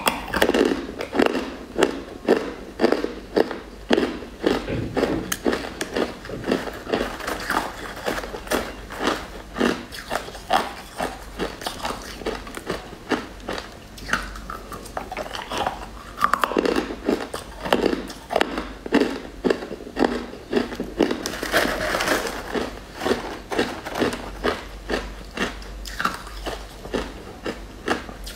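Close-up biting and crunching of hard, brittle purple crystalline chunks, a fast run of sharp cracks several a second as the pieces are crushed between the teeth.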